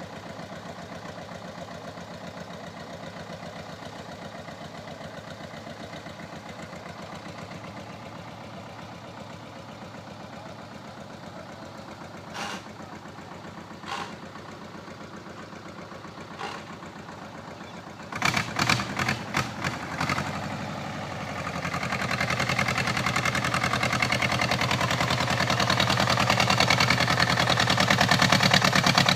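Same 250 tractor engine running steadily at low revs, with a few sharp clicks near the middle. About 18 seconds in comes a quick run of knocks, then the engine speeds up and runs louder to the end.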